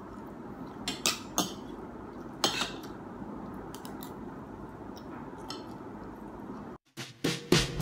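Fork and spoon clinking against a plate while eating: a handful of short, sharp clicks spread through, over a low steady room background.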